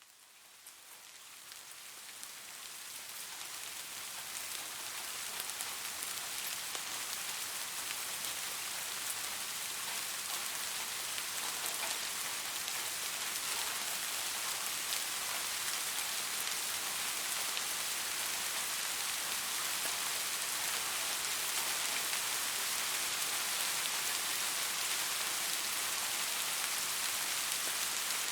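Steady rain falling on a surface, a dense even patter and hiss. It fades in from silence over the first several seconds, then holds at a constant level.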